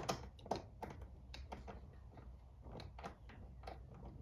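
Faint, irregular light clicks and taps of trim pieces being handled and fitted back into place.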